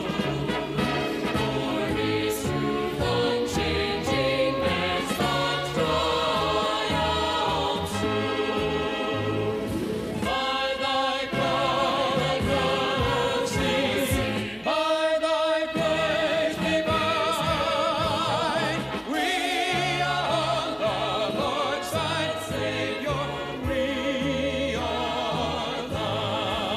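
A gospel choir singing with instrumental accompaniment: several voices in harmony with vibrato over a steady bass line.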